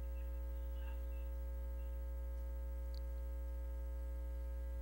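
Steady electrical mains hum with a ladder of overtones, unchanging in level, and a faint tick about three seconds in.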